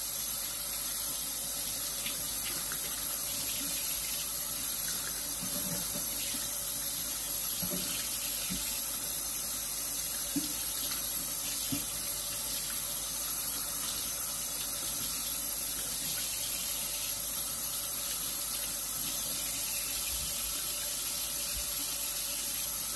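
Kitchen tap running steadily into a stainless steel sink as fish is rinsed and rubbed clean under the stream, with a few faint knocks.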